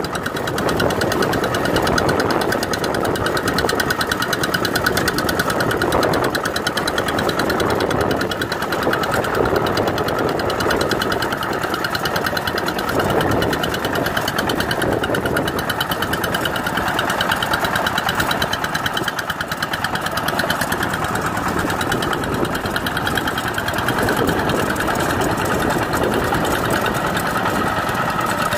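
Two-wheel walking tractor's single-cylinder diesel engine running steadily with a fast, even knocking beat, while its rotary tiller works through wet paddy mud.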